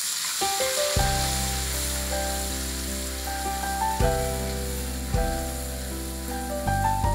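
Spice paste sizzling and frying in hot oil in a wok as it is stirred. Melodic background music with held notes and deep bass comes in about a second in.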